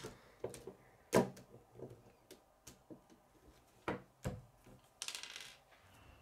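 K'nex plastic rods and connectors clicking and knocking as they are snapped and pushed together on a model, a string of separate sharp clicks with two louder ones. About five seconds in, a brief scraping rustle.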